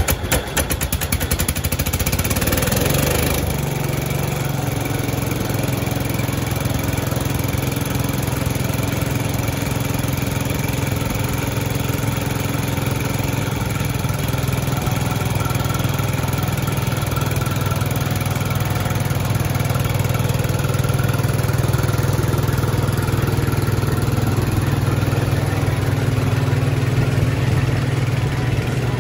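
1968 Cub Cadet 125's single-cylinder Kohler engine on a cold start, the first since last fall: it cranks unevenly on the starter, catches about three seconds in, then runs steadily.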